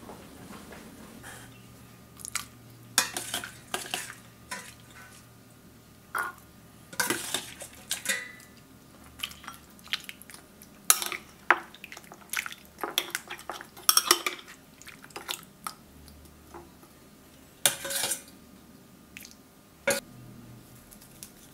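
A metal ladle clinking, with irregular sharp knocks, against a ceramic bowl as chicken feet and dark broth are ladled in.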